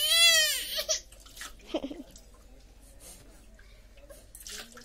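A baby lets out one short crying wail, rising then falling in pitch, in the first second, then water is poured and splashed over the baby during a bath, quieter.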